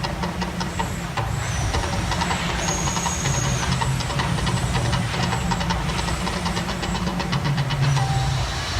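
The Mirage volcano show's eruption effects: a steady deep rumble with hissing and rapid crackling.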